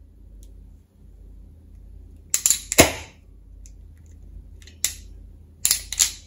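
Sharp clacks of a spring-loaded self-adjusting wire stripper snapping shut and springing open on a wire end. A quick cluster of loud snaps comes about two and a half seconds in, then a single click near five seconds and another cluster of clicks near the end.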